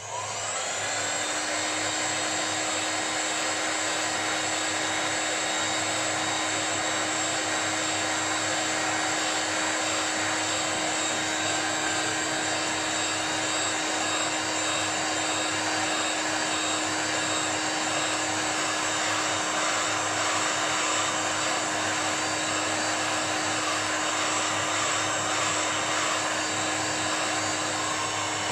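Hand-held hot-air blower switched on, coming up to speed within the first second, then running steadily as it blows hot air onto a Kydex holster to soften the plastic.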